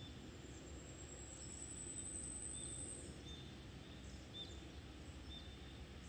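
Quiet forest ambience: steady low background noise, with a faint thin high tone through the first half and short, faint bird chirps several times.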